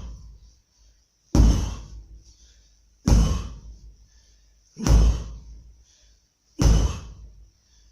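A 12 kg sledgehammer striking a target with a heavy thud, four strikes at an even pace of about one every 1.7 seconds, each dying away before the next.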